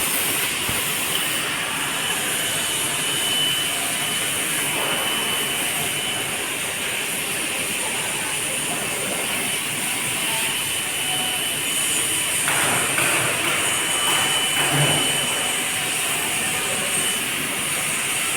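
Fiber laser cutting machine running: a steady loud hiss, with a thin high whistle that comes and goes.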